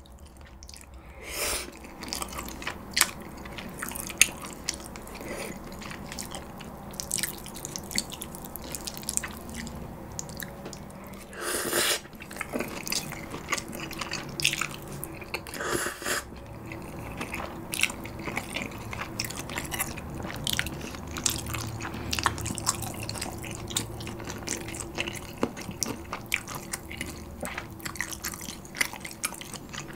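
Close-miked eating of galbi-flavoured bibim ramyeon noodles: wet chewing with many sharp mouth clicks, and a few longer slurps about a second and a half in and again around 12 and 16 seconds in.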